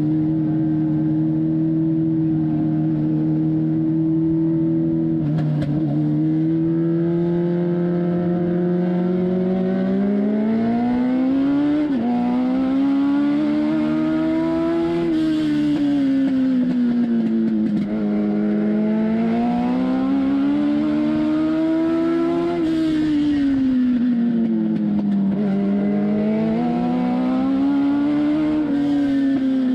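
Legend car's Yamaha four-cylinder motorcycle engine heard from inside the cockpit, holding a steady speed at first, then climbing in pitch and settling into a regular rise and fall about every six seconds as the throttle is opened and eased around the oval.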